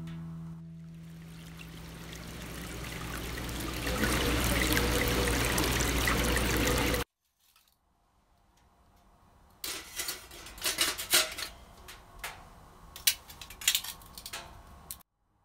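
A rushing, water-like noise swells over a few seconds, holds, and cuts off abruptly about halfway through. After a short silence come irregular sharp clicks and crinkling handling sounds.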